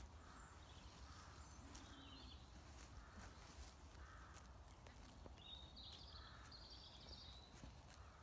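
Near silence: quiet outdoor ambience with faint distant bird calls, twice in the middle and again toward the end, and scattered soft clicks.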